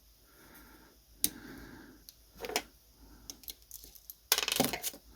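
Small metal parts of a 1919 Molle No. 3 typewriter's mechanism clicking and scraping as they are handled and fitted by hand. A single sharp click comes about a second in, and a quick rattling run of clicks near the end is the loudest part.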